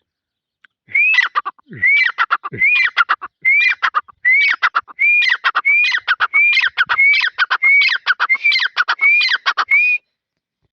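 Grey francolin (teetar) calling: a loud series of about a dozen evenly repeated phrases, each opening with a rising-then-falling note and followed by a quick run of descending notes. The calling starts about a second in and stops shortly before the end.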